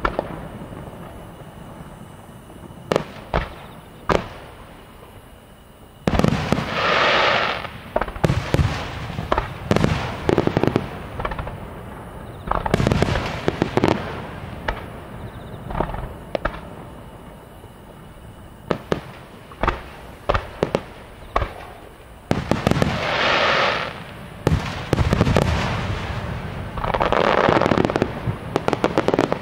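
Finale of a large fireworks display: aerial shells going off with sharp bangs, in single reports and in several dense volleys of rapid-fire bangs and crackling, about 6 s, 13 s, 23 s and 27 s in.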